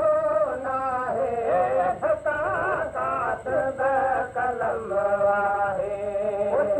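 Male voice singing a Sindhi molood, a devotional hymn in praise of the Prophet, the melody wavering and gliding between held notes.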